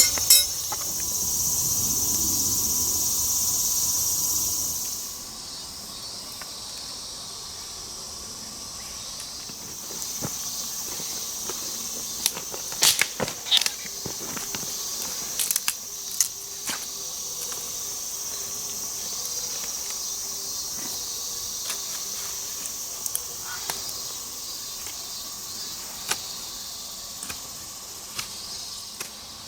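Insects chirping in a steady high shrill, loud for the first five seconds and fainter after. Scattered sharp clicks and scrapes come through, most between about 12 and 17 seconds in: a knife carving a tree branch into a pot hook.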